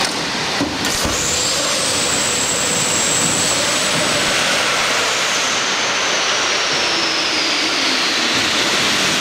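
Boeing 747-400 upper-deck emergency evacuation slide deploying and inflating. A couple of sharp knocks about a second in, then a loud, steady rushing hiss of inflation gas with a high whistle that slowly falls in pitch toward the end.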